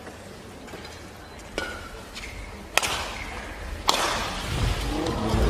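Badminton rackets striking a shuttlecock: two sharp hits about a second apart, near the middle, over the steady murmur of a crowd in a large hall.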